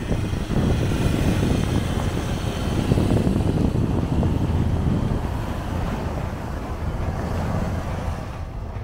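A Ford Ranger pickup is driving through deep snow close by, its engine working as the tyres churn the snow. Wind buffets the microphone. The sound is loudest about three seconds in and eases off toward the end.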